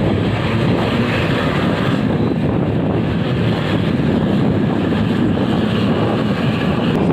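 Steady traffic noise from moving vehicles, with wind buffeting the microphone, heard from a vehicle driving close behind a coach bus.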